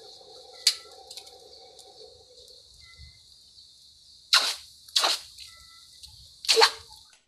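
Blacksmith's charcoal forge, its forced-air fire hissing steadily, with a low hum for the first couple of seconds. Three short, loud hisses come about four and a half, five and six and a half seconds in as the red-hot bolo blade is worked.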